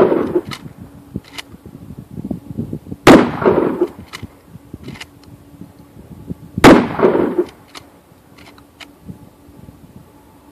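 Shotgun fired twice, about three and a half seconds apart, each blast followed by a short fading echo; the tail of a shot fired just before is dying away at the start.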